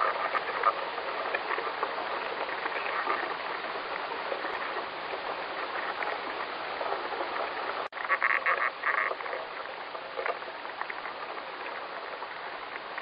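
Recording presented as the sound of ants: a steady hiss with clusters of rapid high chattering clicks, cut by a sudden brief dropout about eight seconds in, after which the chattering resumes.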